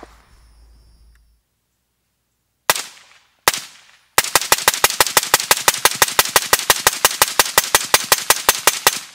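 AR-15 carbine in 5.56 firing through a Rugged Surge 762 suppressor with its Adapt module: two single shots about three seconds in, then a rapid, even string of shots at about six a second lasting nearly five seconds.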